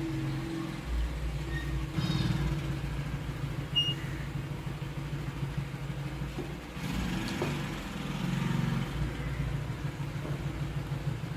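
Curry simmering in a pan while a wooden spatula moves through the sauce, over a steady low rumble.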